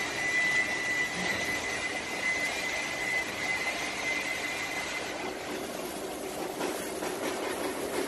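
Steady workshop machine noise, with a thin high whine that fades out about halfway through and a lower hum coming up near the end.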